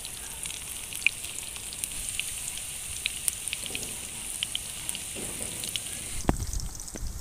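Battered mantis shrimp deep-frying in hot oil: a steady sizzle with many small crackles and pops. About six seconds in there is a low thump, and the sizzle then drops away.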